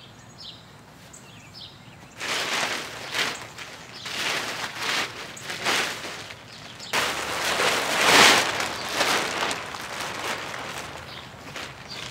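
Thin clear plastic sheet rustling and crinkling as it is shaken out and spread over grass, in repeated bursts starting about two seconds in and loudest around the middle.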